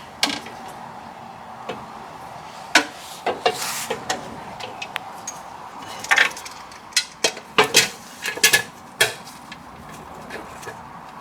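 Irregular clinks and knocks of hand tools and parts being handled during transmission pan work, a few at first and then a quick run of clicks in the second half, with a brief rustle among them.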